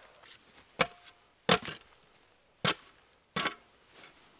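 A steel spade blade striking a log four times, chopping the bark off it. The strikes are sharp and come about a second apart, and the first has a brief metallic ring.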